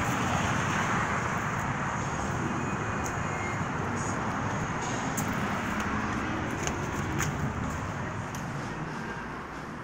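Steady roadway traffic noise, easing off near the end, with a few faint clicks.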